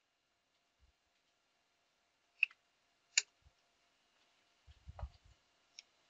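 A few sharp clicks from working a computer at a desk: two about two and a half and three seconds in and a small one near the end, with a short cluster of soft low knocks about five seconds in, over quiet room tone with a faint steady hum.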